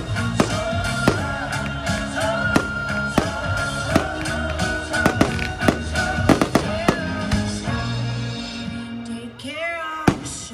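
Fireworks going off in a series of sharp bangs, the loudest near the end, over music with a held melody that fades after about eight seconds.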